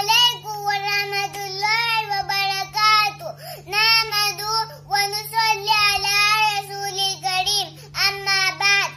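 A young girl singing an Urdu nasheed welcoming Ramadan, unaccompanied, in long held phrases with two short breaths between them.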